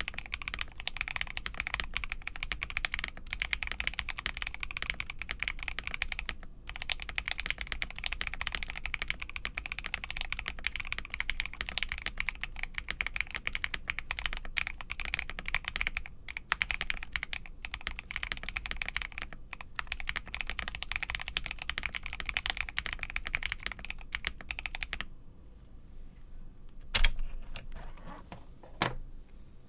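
Fast, continuous typing on an Akko PC75B Plus mechanical keyboard with lubed Akko CS Air linear switches, a polycarbonate plate and cherry-profile keycaps in a foam-modded plastic case. The typing stops about 25 seconds in, and a couple of single, louder key presses follow near the end.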